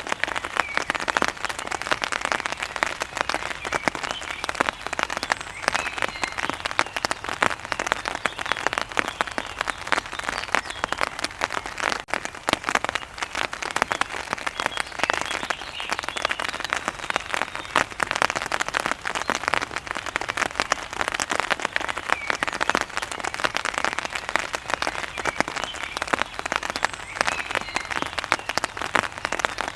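Heavy rain falling steadily, a dense pattering of drops on a hard surface, with faint bird chirps now and then.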